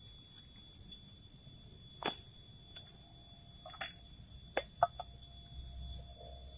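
Steady high-pitched drone of forest insects, with scattered sharp clicks and light knocks of close-up handling, loudest around the middle.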